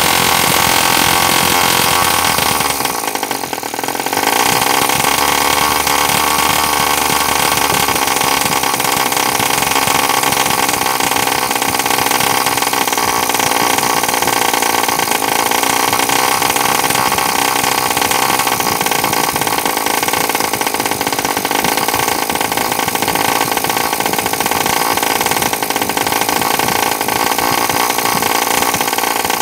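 Homemade single-cylinder two-stroke model engine running on a gasoline and oil mix, a fast, steady buzzing note. It dips briefly about three seconds in, then runs on evenly.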